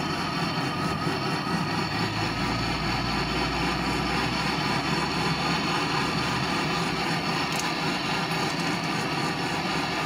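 MAP-gas brazing torch burning with a steady loud hiss while heating a copper refrigerant line joint on a refrigerator compressor. A low rumble swells from about two seconds in and fades by six and a half.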